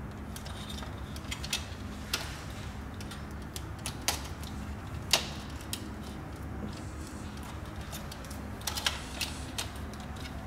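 Scattered small clicks and taps of pliers and stiff copper earth wires being handled and pushed into a plastic push-in earth terminal block, with one sharper click about five seconds in and a quick run of clicks near the end.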